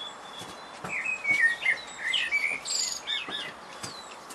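A small songbird singing a quick string of whistled, warbling notes, with a few faint knocks.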